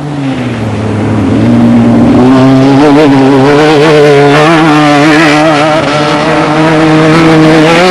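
Off-road desert race vehicle engine running at high revs. Over the first second and a half it grows louder and its pitch steps up, then it holds a steady, slightly wavering note.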